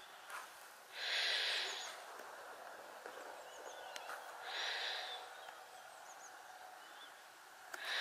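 A person sniffing through the nose three times, each sniff under a second long: about a second in, midway, and at the very end.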